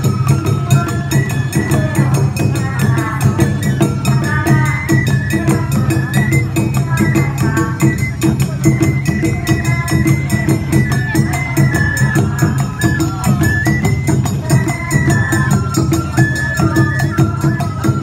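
Live Awa Odori festival music: a bamboo flute playing a stepping melody over steady taiko drumming and the rapid clanging of a small hand gong, continuous and loud.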